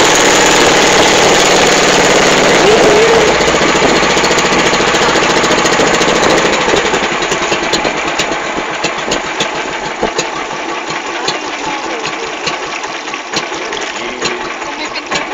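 Outrigger boat (bangka) engine running loudly, then throttled back about seven seconds in to a lower, rougher running with irregular ticking as the boat comes in toward the beach.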